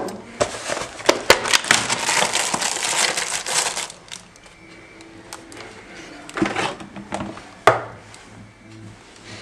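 Crinkling and crunching of dry food and plastic packaging while a sandwich is made at a kitchen counter. A dense crackling stretch lasts about four seconds, then gives way to quieter handling with a few sharp clicks of jars and a knife.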